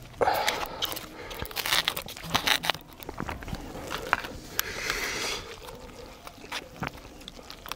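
A person eating up close to the microphone: crunchy chewing and biting, with many sharp mouth clicks and a short slurp-like hiss about five seconds in.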